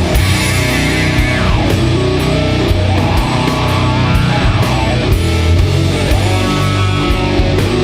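Doom metal with heavy guitars, bass and drums: a thick, sustained low end under regular cymbal hits.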